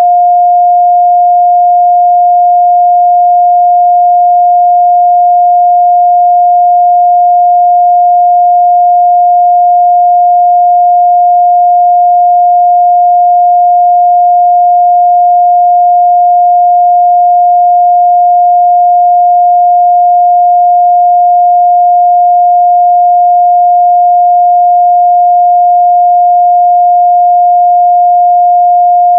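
A pure 708 Hz sine-wave test tone, held at one steady pitch and constant loudness.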